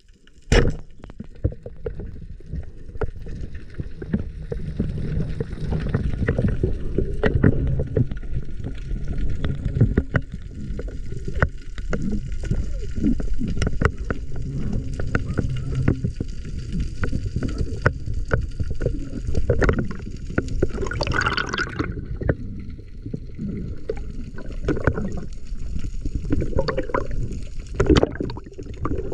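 Water sloshing and gurgling, with many scattered sharp clicks and knocks.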